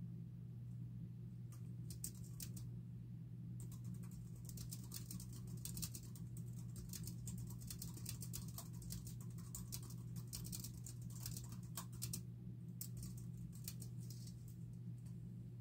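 Typing on a computer keyboard: a few scattered keystrokes, then a steady run of quick taps from about four seconds in, a brief pause, and more typing near the end. A low steady hum sits under the keystrokes.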